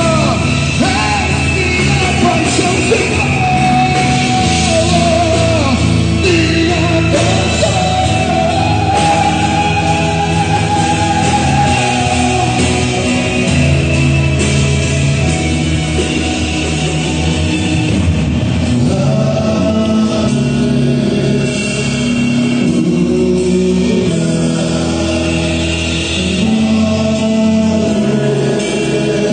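A Christian worship song sung live by a solo voice over a full band with guitar, the singer holding and sliding between long notes over sustained chords.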